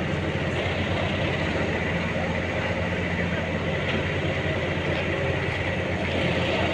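Heavy engine of a telescopic boom lift running steadily, with a low, even hum and no knocks or impacts.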